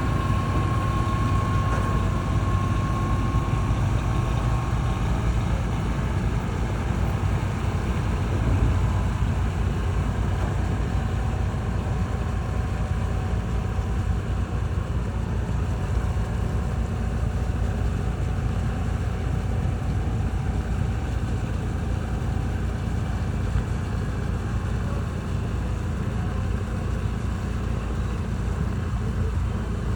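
Engines of a river express passenger boat running steadily under way, a continuous low rumble, with a faint high whine in the first few seconds.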